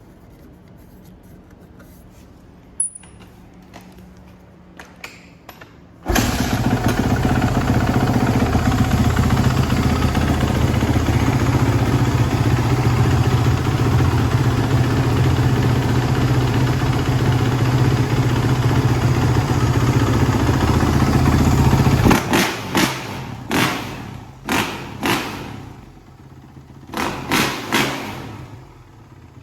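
2015 Kawasaki KX450F's single-cylinder four-stroke engine. A few knocks come first, then about six seconds in it fires and runs loud and steady for a long stretch. It then drops to a lower idle, broken by a series of quick throttle blips. It sounds strong and settles to a nice idle.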